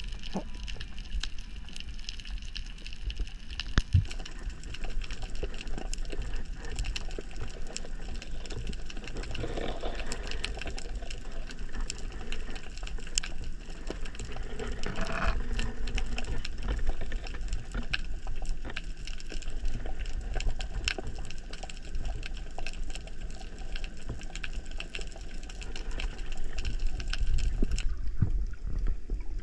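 Underwater ambience picked up by an action camera: a steady low water rumble with dense, irregular crackling clicks, and two brief louder rushing sounds about ten and fifteen seconds in.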